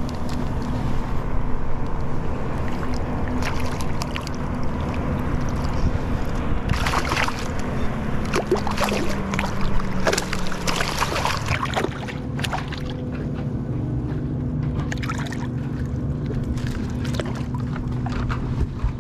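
Small snook splashing at the water's surface as it is brought to the kayak and lifted out by the line, over the steady hum of a motor.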